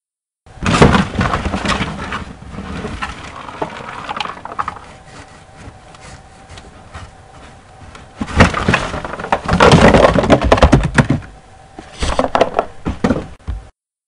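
Crash and breaking sound effects. A loud crash about half a second in trails off over a few seconds. From about eight seconds on come repeated clattering crashes of wreckage piling up, in three loud spells before it cuts off near the end.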